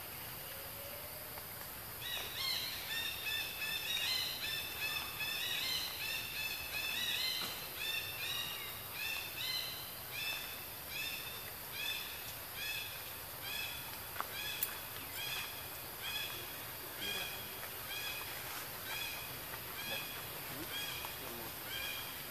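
A long run of short, high-pitched animal calls starting about two seconds in, crowded and overlapping at first, then settling into a steady repeat of about one and a half calls a second.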